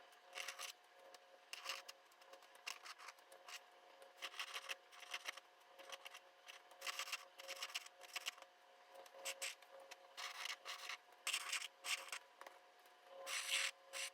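Drawing tool scratching on paper in quick, irregular strokes of varying length, with a longer stroke near the end.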